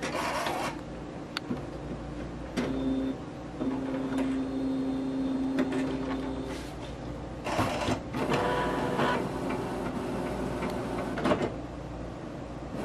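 Epson L1800 ink tank inkjet printer running its power-on start-up cycle. A brief burst of clicking starts it, then a steady low motor whine for about four seconds, then a longer stretch of whirring and rattling from its mechanism.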